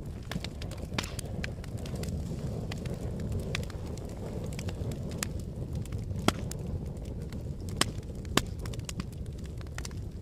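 Fire crackling: a steady low rumble of burning with scattered sharp pops and snaps, the loudest pops about six seconds in and twice around eight seconds in.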